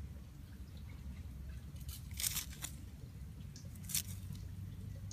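Garden trowel digging into moist worm castings, with two short crunchy scrapes, about two seconds in and about four seconds in.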